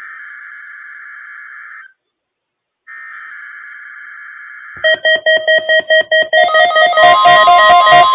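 NOAA Weather Radio SAME header for a Required Weekly Test: two bursts of digital data tones, each about two seconds long with a second's gap between them. About five seconds in, a much louder pulsing sequence of electronic tones at several pitches starts, and a steady tone joins in near the end.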